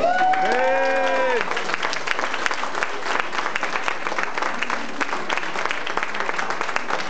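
Audience applauding, with a drawn-out voice or two calling out over it in the first second and a half, then steady clapping.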